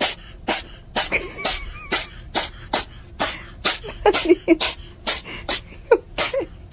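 An animal giving a rapid, regular series of sharp cough-like huffs, about two a second, with a few short whines between them near the end.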